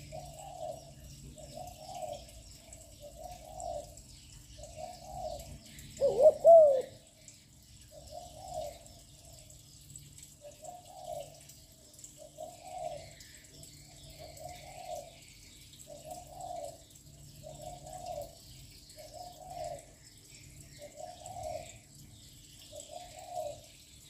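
Young spotted dove cooing continuously: soft low coos repeat about every second and a half, with one much louder, clearer call that bends up and down about six seconds in.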